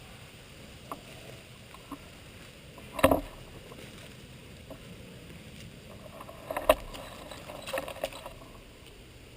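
Sharp clacks and knocks of handled gear over a faint steady hiss: a few small clicks, one loud clack about three seconds in, then a burst of knocks and clicks from about six and a half to eight seconds.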